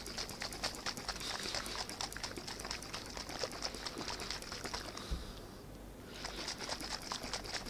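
Capped plastic bottle of carrot extract and honey being shaken by hand, the liquid sloshing and rattling in quick strokes to mix it into a syrup. The shaking stops for about a second a little past halfway, then starts again.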